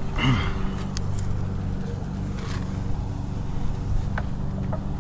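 Steady low machine hum, with a few light clicks and a short grunt-like vocal sound just after the start.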